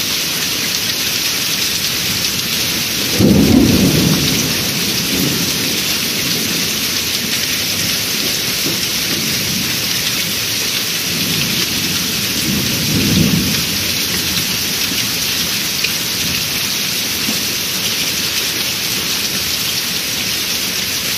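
Heavy rain falling steadily in a thunderstorm, with thunder rumbling: a loud peal about three seconds in, and weaker rolls around eleven to thirteen seconds.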